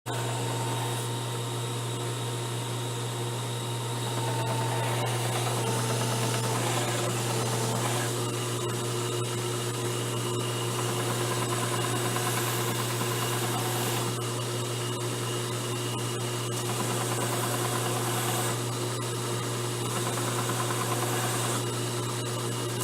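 An electric belt sander/grinder motor runs steadily with a strong low hum, while the abrasive sanding belt rasps against the work. The sound grows louder about four seconds in and its texture shifts a few times as the work is pressed on and eased off.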